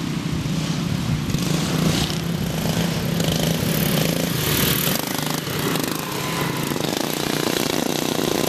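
Several racing lawn tractor engines running hard together as the mowers go past, a loud steady engine drone whose pitch shifts partway through.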